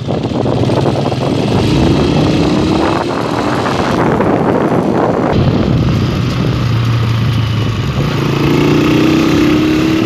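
Honda motorcycle's small engine running as it is ridden along a dirt road, with a rushing noise over it. Its pitch rises twice as it picks up speed.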